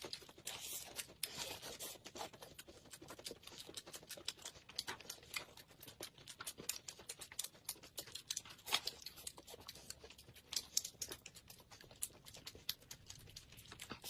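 Faint eating sounds: irregular soft clicks, crackles and rustles of chewing and of handling food.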